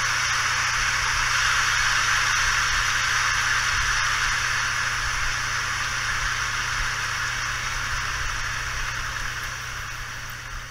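Large stadium crowd applauding, a steady wash of clapping that slowly fades over the last few seconds.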